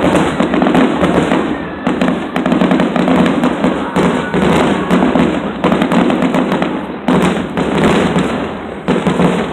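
Aerial fireworks display: shells bursting overhead in a dense barrage, many sharp bangs in quick succession.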